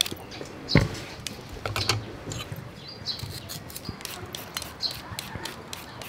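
Handheld vegetable peeler scraping along a raw carrot in quick repeated strokes, each a short crisp scrape, with a single loud thump about a second in. Birds chirp faintly now and then.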